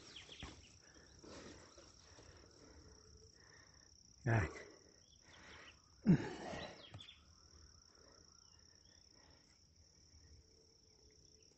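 Insects droning steadily in a high, even band, with scattered faint steps and rustles on the trail. Two short, loud voice sounds break in about four and six seconds in.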